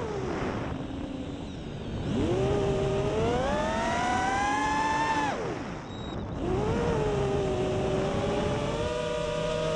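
Racing quadcopter's brushless motors whining, the pitch swinging with throttle. It falls away at the start, climbs again about two seconds in, dips sharply near the middle, then rises and holds.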